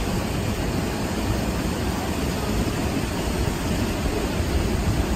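Steady rush of flowing river water, an even noise with a strong low rumble and no splashes standing out.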